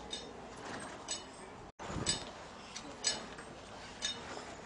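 Faint, sharp metallic clinks with a short high ring, about one a second, over low background noise.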